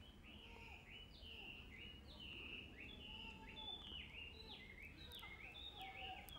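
Faint birdsong: a continuous run of short, high whistled notes that slide up and down, with a few lower notes mixed in.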